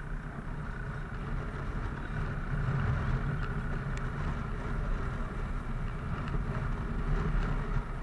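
Motorcycle engine running as the bike rides along, with wind and road noise; it gets louder about two seconds in.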